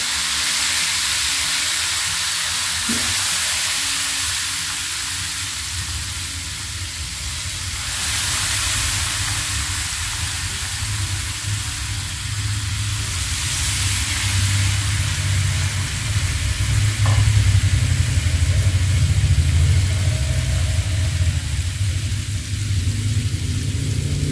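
Tilapia pieces deep-frying in a pan of hot oil, just put in: a steady sizzle with foamy bubbling. A low rumble builds underneath in the second half.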